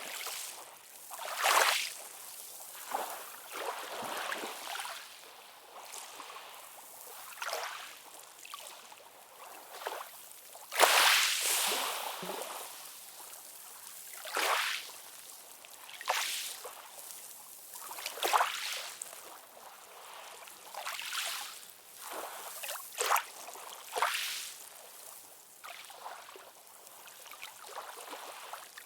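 Calm ocean waves lapping and splashing in irregular small washes a second or two apart, with the biggest splash about eleven seconds in.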